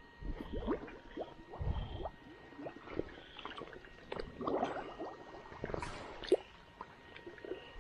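Footsteps wading through shallow pond water over soft mud: irregular squelches, sloshes and small splashes, with a few heavier thuds.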